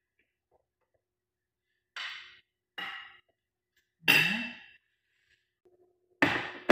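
A utensil clinking against a glass baking dish in four short knocks as fried eggplant slices are laid in, the last two the loudest.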